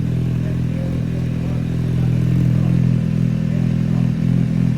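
MV Agusta F4 312's inline-four engine idling steadily through an aftermarket exhaust, warming up just after a start following a long time unused.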